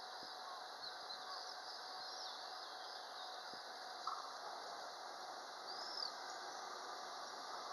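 Faint bird chirps over a steady rushing background noise: a few quick chirps about two seconds in and a single rising-falling chirp near six seconds.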